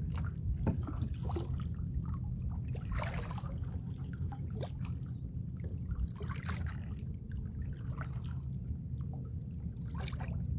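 Kayak paddle strokes in calm water: the blade splashing in about every three seconds, with dripping between strokes, over a steady low rumble.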